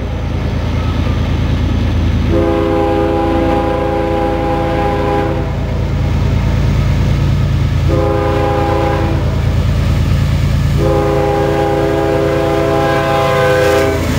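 Diesel freight locomotive's air horn sounding the end of the grade-crossing signal: a long blast, a short one and a long one, each a sustained chord, over the steady rumble of the locomotives' diesel engines. The locomotives pass close by near the end.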